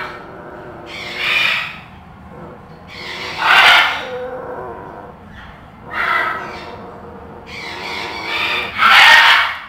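Macaw giving loud, harsh squawks, about five of them spaced a couple of seconds apart.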